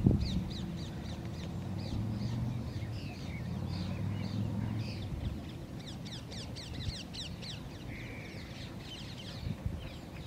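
Birds chirping in quick runs of short, high, falling notes, densest a little past the middle, over wind rumbling on the microphone that gusts hardest at the start.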